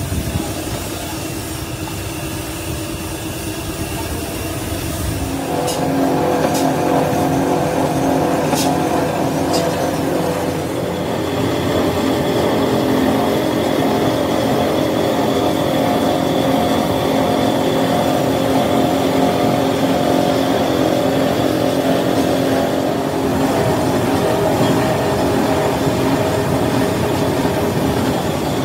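Steel wheel-rim roll-forming machine running, its rollers turning and pressing a steel rim band with a steady loud mechanical hum and grind. About five seconds in the sound steadies into several held tones, with a few sharp metallic clicks shortly after.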